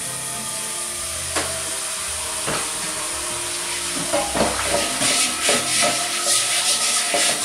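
Tap water running into a kitchen sink while a new Lodge cast iron skillet is scrubbed with a stiff nylon brush, with a few knocks of the pan in the first half and quick, repeated brush strokes from about five seconds in.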